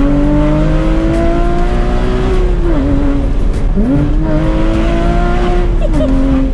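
Porsche Cayman GT4's flat-six engine through a full IPE exhaust line, pulling hard with its pitch climbing steadily, then falling suddenly about two and a half seconds in and again near the end as it shifts up. The sound cuts off at the end.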